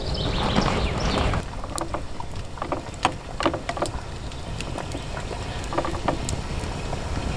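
A steady low rumble of wind on the microphone. For the first second and a half a wood campfire hisses and crackles, then a knife cutting bacon in a small metal camp pan gives a run of light clicks and taps against the pan.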